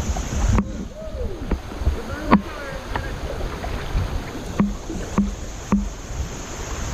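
Kayak paddle knocking against the hull in short hollow thuds, about seven times and the loudest about two seconds in, over steady low water noise from the fast-moving creek.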